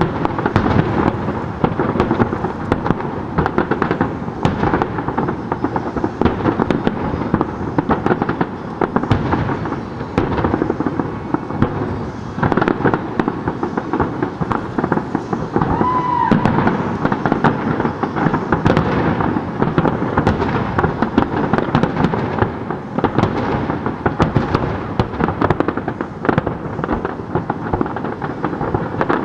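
Aerial fireworks display: many shells bursting in rapid, overlapping bangs with continuous crackle, and a short whistle about halfway through.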